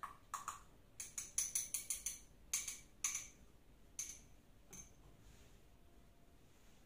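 Small glass beakers clinking and tapping against each other and the bench as they are handled: a quick run of light, bright clinks that thins out after about four seconds.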